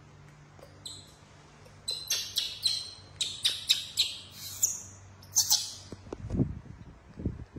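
Newborn macaque crying in a rapid string of short, high-pitched squeals, about a dozen in all. A few low thumps follow near the end.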